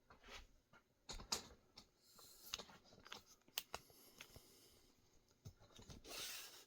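Near-quiet handling noise: scattered light clicks and knocks, with a short rustle near the end.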